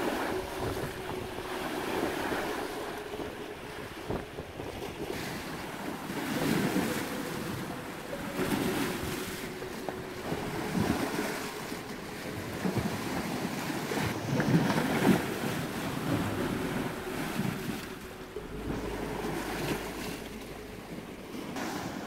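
Lake waves washing and splashing against shoreline rocks, swelling in surges every few seconds, with wind noise on the microphone.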